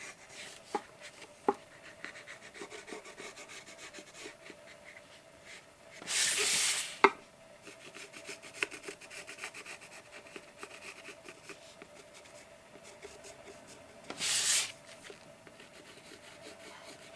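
Watercolour pencil scratching lightly on paper in short strokes, with two louder swishes about six and fourteen seconds in as the paper page is slid round on the table.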